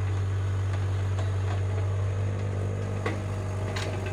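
Heavy diesel engines of a tracked excavator and waiting tractors running steadily while the excavator digs and lifts a bucket of soil. A few sharp knocks sound about three seconds in.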